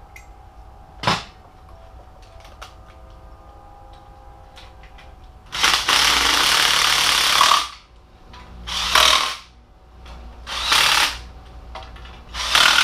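Ridgid cordless impact driver with a 10 mm socket running down exhaust heat shield nuts: one burst of about two seconds, then three shorter bursts about a second and a half apart. A sharp click about a second in.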